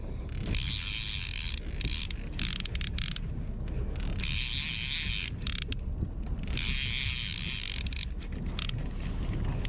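Okuma Convector CV30D line-counter trolling reel being cranked in four spells of a second or so, its gears whirring as line is wound in against a hooked fish, over a steady low rumble.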